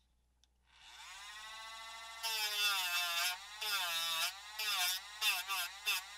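Dremel rotary tool spinning up with a rising whine about a second in, then its sanding drum grinding against the plastic of a model car body in a series of short passes, the motor's pitch dipping each time it bears on the part.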